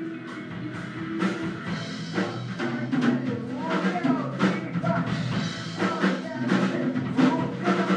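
Live rock band rehearsing: electric guitar and keyboard playing, with a drum kit joining in about a second in and the band playing on together.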